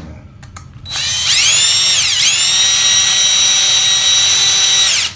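Power drill driving a large screw: the motor spins up about a second in, its whine drops briefly under load and picks back up, then runs steadily for about three seconds and stops suddenly.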